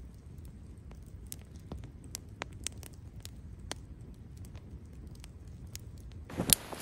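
Campfire of dry sticks and branches burning, the wood crackling with irregular sharp pops and snaps over a low steady rumble. A louder, noisier sound starts near the end.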